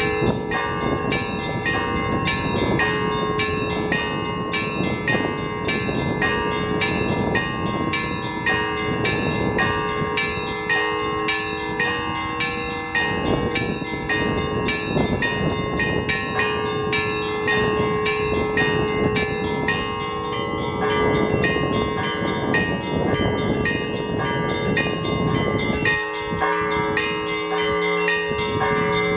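Orthodox church bells rung by a bell-ringer in a continuous peal: rapid, closely spaced strikes of the smaller bells over the long ringing tones of the larger ones. Strong wind gusts rush over the microphone underneath, easing off near the end.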